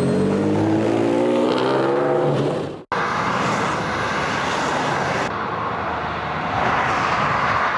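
A sports-car engine accelerating, its note climbing steadily for about three seconds, then a sudden cut to the steady rush of motorway traffic passing below, tyre and engine noise swelling slightly near the end.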